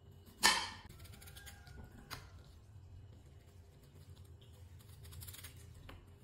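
Chef's knife cutting through a peeled raw potato and striking a stone countertop: one sharp chop about half a second in, a lighter one about two seconds in, then faint taps and knocks.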